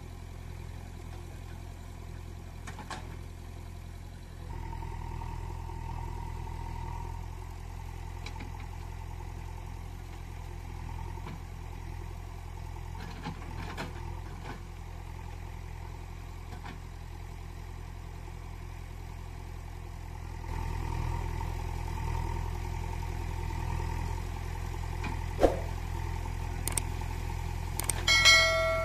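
Steady engine idling sound, a low even running that steps up in level about four seconds in and again about twenty seconds in. A sharp click comes near the end, followed by a short bright chime.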